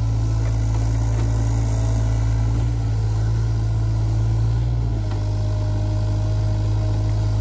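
SANY SY35U mini excavator's diesel engine running under digging load with the cab air conditioning on, a steady drone with a faint whine that comes and goes. The engine sounds pulled down: the operator says the AC unit saps the horsepower of this low-horsepower cab model.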